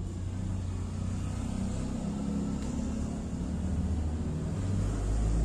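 A steady low mechanical rumble, like a motor running, that swells in its deepest range near the end.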